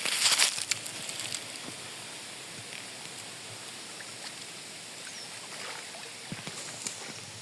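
Crackling and rustling for about the first second, then a steady hiss of flowing river water.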